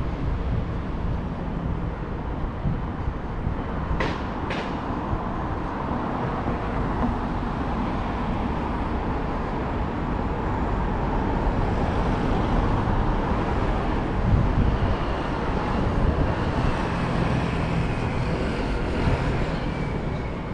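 Road traffic on a city street: a steady hum and rumble of passing cars and vans. Two short, sharp clicks come about four seconds in.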